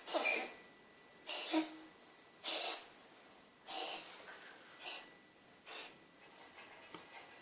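A small animal coughing: about six short, hoarse coughs roughly a second apart, growing fainter.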